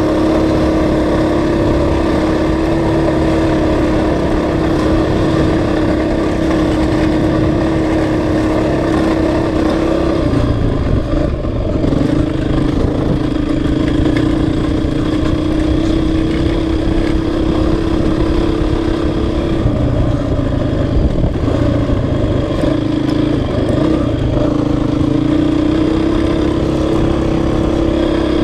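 Honda CRF450X's single-cylinder four-stroke engine running at a steady cruising speed on a dirt trail, its pitch dipping and recovering a few times as the throttle eases off and comes back on.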